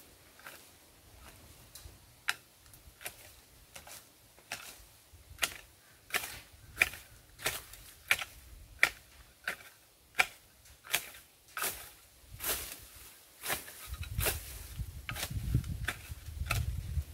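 Hoe blade chopping into soil and grass in steady repeated strikes, about one and a half a second, as weeds are cleared by hand. A low rumble joins in the last few seconds.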